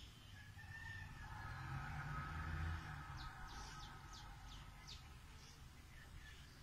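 A faint rooster crowing: one long crow that swells and ends about three seconds in, followed by a few short, high bird chirps.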